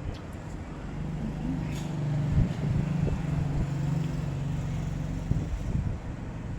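A motor vehicle engine passing close by, a low steady hum that swells about a second in and fades away after about five seconds. A few light clicks can be heard over it.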